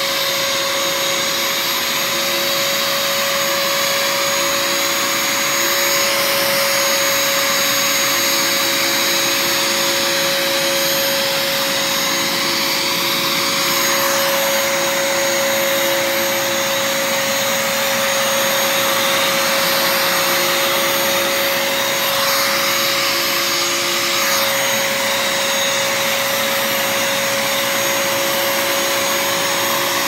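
Bagless upright vacuum cleaner running steadily with a constant motor whine as it is pushed over carpet.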